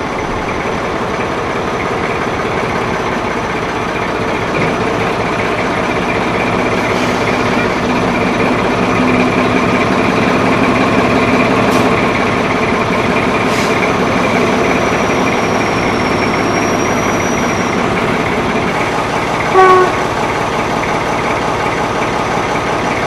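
Class 14 diesel-hydraulic shunter's Paxman Ventura V6 diesel engine running, its sound building over the first twelve seconds or so and then holding steady. A single short horn toot comes near the end.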